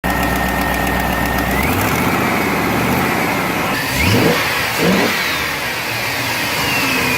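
GM truck V8 engine running, blipped twice in quick succession about four and five seconds in, then settling back. The sound cuts off abruptly at the end.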